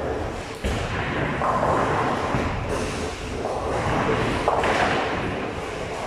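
Bowling alley noise: balls rolling on the lanes with thuds of ball and pin impacts, and a sharp thud about two-thirds of a second in.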